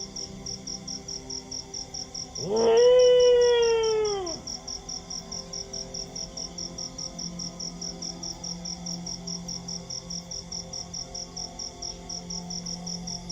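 A dog howls once, about two and a half seconds in: a single long note that swoops up and then slides down and fades. Crickets chirp in a steady, rapid pulse throughout.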